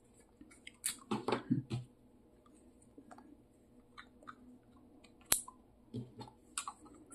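Small plastic camera accessories handled: a DJI Mic Mini transmitter and a 3D-printed plastic mount rubbed and clicked together, giving scattered soft clicks and rustles, with one sharp click about five seconds in.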